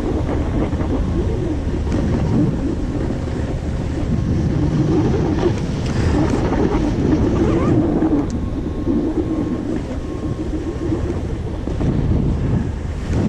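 Snowboard riding down a groomed run: the board's edges scrape and hiss on the corduroy snow under steady wind noise on the microphone, swelling and easing with the turns.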